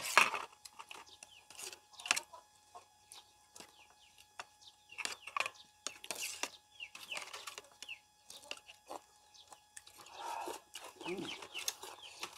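Domestic chickens clucking now and then, with a louder falling call near the end, over the light clinking and scraping of spoons on plates and bowls.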